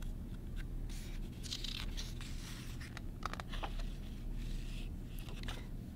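Light rustling and brushing of a picture book's paper pages being handled, a few short scratchy sounds scattered through, over a low steady hum.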